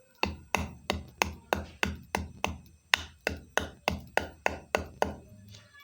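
A whole nutmeg being pounded to break it, about sixteen sharp, regular strikes, roughly three a second, each a short thud with a brief ring, stopping about five seconds in.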